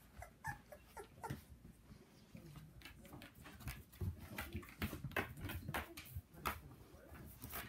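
Young puppies scuffling and playing together: frequent small clicks and scrabbles of paws and claws, with a few brief whimpering squeaks near the start.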